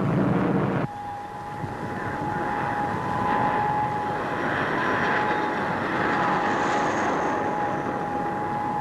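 English Electric Canberra jet's twin Rolls-Royce Avon turbojets in flight: a steady rush of jet noise with a high, steady whine, coming in abruptly about a second in.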